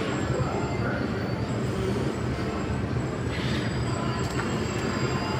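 Subway train running on the steel elevated structure overhead: a steady, heavy rumble, with a faint thin high whine over it.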